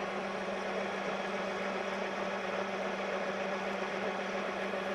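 Metal-cutting engine lathe running under power feed, a carbide insert with a chip breaker turning a large workpiece: a steady drive hum with one held tone under the hiss of the cut.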